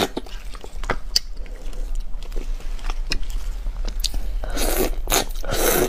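Crunching and chewing as a large cooked red prawn is bitten and its shell broken apart: many sharp shell clicks, with two longer, louder crunches near the end.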